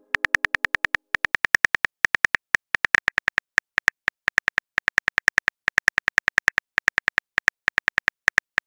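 Rapid phone-keyboard typing clicks, a short tick for each letter typed, about seven a second with brief irregular pauses.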